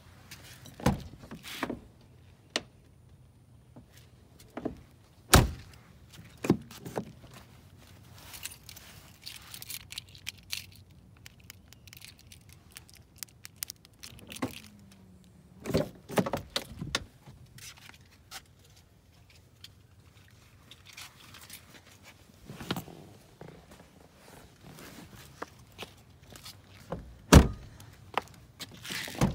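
Scattered clicks, knocks and thuds around a parked car, with the loudest thunks about five seconds in and near the end.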